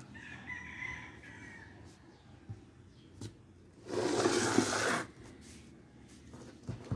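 A rooster crows faintly in the first second or so. About four seconds in, a one-second scraping rustle as chainsaw parts are handled on a tiled floor, with a few light clicks around it.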